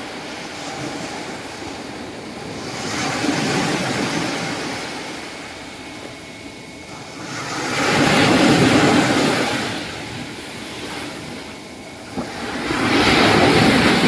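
Surf breaking and washing up a sandy beach, swelling up three times about five seconds apart; the second and third waves are the loudest.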